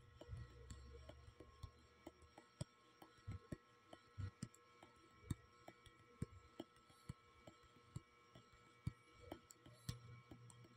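Near silence: faint room tone with scattered soft clicks at irregular intervals.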